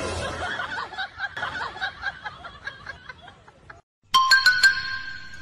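A person laughing in a quick run of pulses that fades away over about four seconds. After a short break, a few sharp clicks and bright, steady musical tones start, louder than the laughter.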